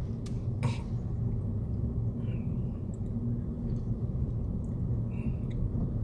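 Car running on the road, heard from inside the cabin: a steady low drone of engine and tyres, with a couple of faint ticks near the start and a few faint short high squeaks later.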